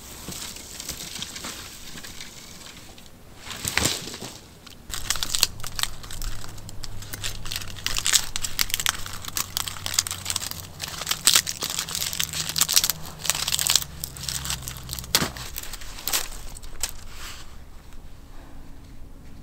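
Crinkling and crumpling in dense, irregular crackles, thickest from about five seconds in and thinning out near the end.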